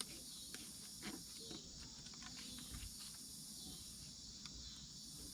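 Faint, steady high-pitched insect chorus, with a few light clicks and taps.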